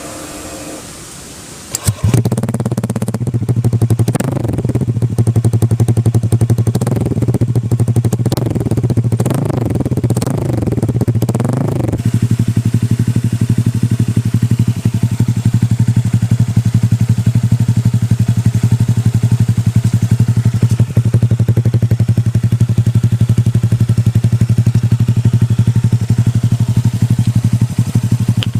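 Honda Click 150i scooter's single-cylinder engine, heard through an aftermarket Akrapovic-style exhaust with its silencer insert removed. It starts up about two seconds in, is revved in repeated quick throttle blips for about ten seconds, then settles into a steady idle.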